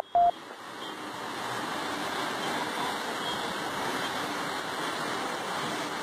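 Muddy floodwater rushing steadily down a street around parked cars, an even churning noise of fast-moving water. Right at the start, a couple of short electronic beeps end the channel's intro sting.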